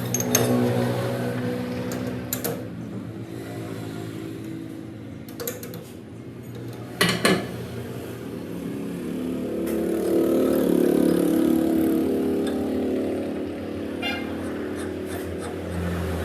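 Workshop machinery running with a steady pitched hum that swells and shifts in pitch partway through, with a few sharp metal clicks and knocks.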